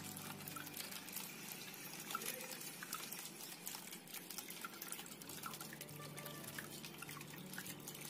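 Water trickling and dripping in a small cement tabletop waterfall fountain, falling from a tipped clay pot into the pool below with many small splashes.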